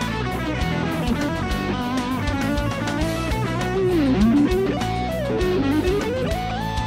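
Electric guitar played through a Blackstar Fly 3 mini amplifier: a single-note lead line with string bends and vibrato, the bends swooping down and back up about four and five and a half seconds in.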